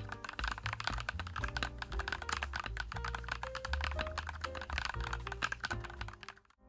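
Fast typing on a YUNZII x COOLKILLER CK75 mechanical keyboard with a full-acrylic, gasket-mounted case: a dense run of key clacks over background music, stopping shortly before the end.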